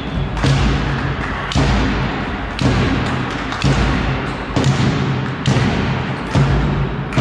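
A drum beaten in a steady rhythm, about one thump a second, echoing around a large sports hall.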